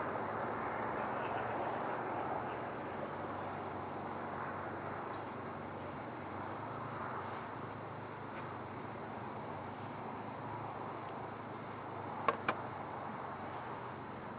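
Steady outdoor background noise with a constant high, thin insect-like drone, and two quick clicks near the end.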